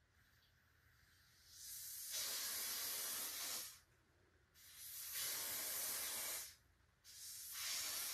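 Aerosol Ebin lace-bond spray hissing in three long bursts of about two seconds each, with short pauses between, the third starting near the end: three coats being sprayed over a wig cap.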